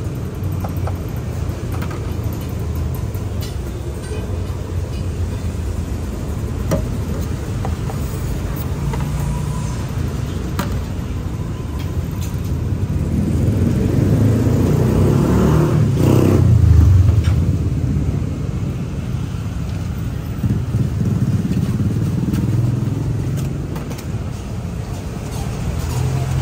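Road traffic: cars and motorbikes passing a roadside stall with a steady engine rumble, one vehicle passing loudly about two-thirds of the way in. A few light knocks from the stall sound now and then.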